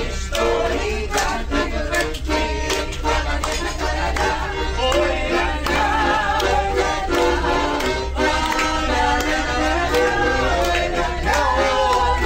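Live accordion playing a lively tune while women sing along.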